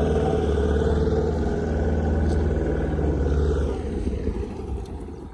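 Outboard motor of a small wooden balam boat running under way, a steady low engine drone that dies away about four seconds in.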